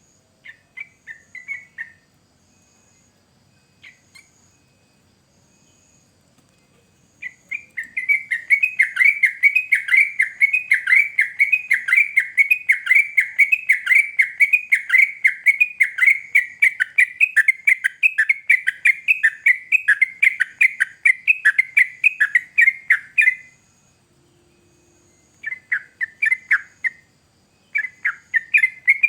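Yellow-vented bulbul (trucukan) singing. It gives a few short phrases, then a long, fast run of rapidly repeated notes lasting about fifteen seconds. After a brief pause it starts up again near the end.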